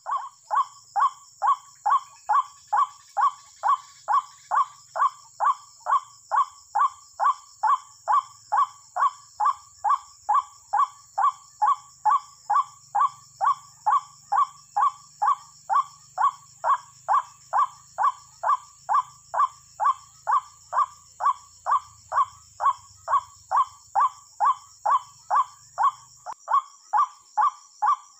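White-breasted waterhen (ruak-ruak) calls played back as a trapping lure, one call repeated about twice a second at an even pace and strength.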